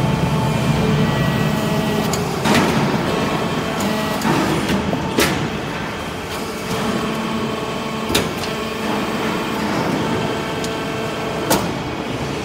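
Y83-500 hydraulic briquetting press running, its hydraulic power unit giving a steady hum. A sharp clank about every three seconds, four in all, as pressed metal-chip briquettes are pushed out and drop onto the pile.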